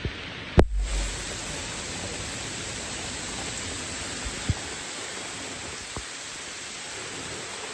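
Rain falling steadily in a rainstorm, a continuous even hiss. A single sharp thump with a brief low rumble comes about half a second in, and a couple of faint knocks follow later.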